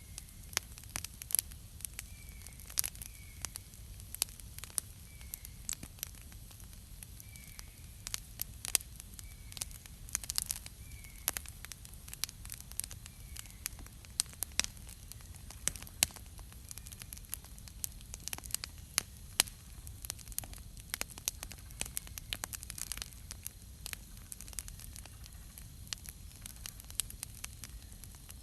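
Wood campfire crackling, with many sharp irregular pops and snaps of varying loudness over a steady low rumble. A faint short bird call repeats every second or two through the first half.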